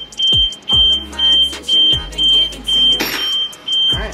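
Audi A4 alarm siren going off as the new battery is connected, a high beeping tone about twice a second, over background music with a steady beat. A brief clatter about three seconds in.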